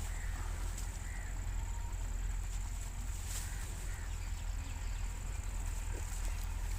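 Outdoor field ambience: a steady low rumble of wind on the microphone, with a few faint bird chirps.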